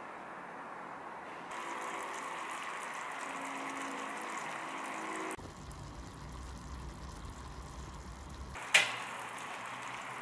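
Sugar syrup bubbling and simmering in a saucepan over a gas burner. About five seconds in the sound changes to a lower rumbling boil. A single sharp click comes near the end.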